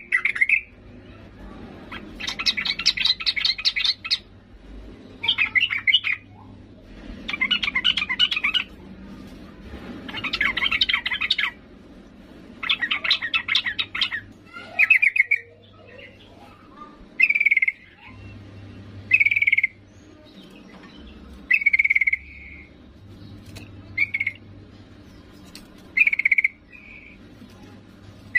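Yellow-vented bulbul calling: about six rapid chattering bursts of a second or two each, then shorter clear calls roughly every two seconds. It is presented as a female bulbul's call to a male.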